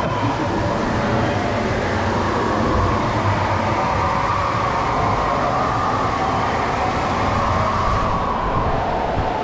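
Steady rushing and rumbling of a ride boat moving through water in a dark, enclosed tunnel.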